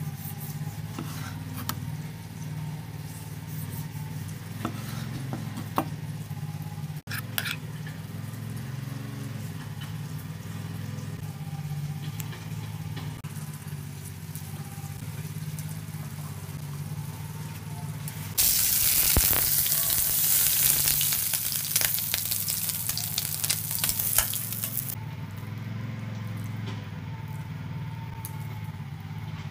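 Loud sizzling of food frying in a hot pan starts suddenly past the middle and cuts off about six seconds later, over a steady low hum. Before it come a few sharp knife taps on a wooden cutting board.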